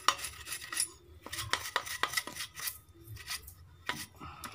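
Irregular metallic clicks and light clattering as hands handle an inverter welder's open steel frame and circuit board.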